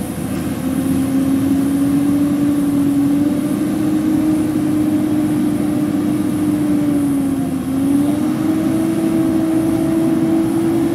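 Pickup truck's engine held at high revs with a steady whine that dips briefly past the middle and climbs again, the truck straining to pull out of deep mud.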